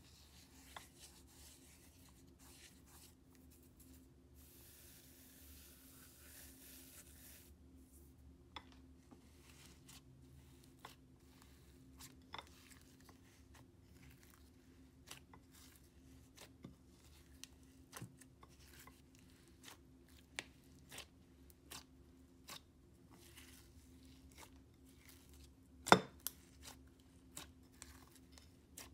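Slime being squished and kneaded by hand into fake snow granules in a glass dish, with scattered crackling clicks and small pops and one much louder snap near the end.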